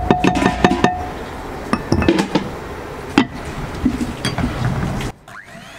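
Scattered clinks and knocks of a glass mixing bowl and the metal beaters of an electric hand mixer, with a short ringing note near the start. Near the end the background drops away and the hand mixer's motor starts up with a rising whine.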